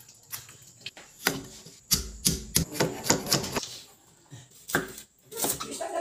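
Cleaver chopping on a thick wooden chopping block while cutting a red onion: a run of irregular knocks, several in quick succession.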